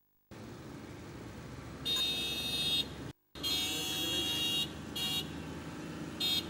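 Street noise with a high horn-like tone blaring in several short bursts over it. The sound starts abruptly after silence and cuts out completely for a moment about three seconds in.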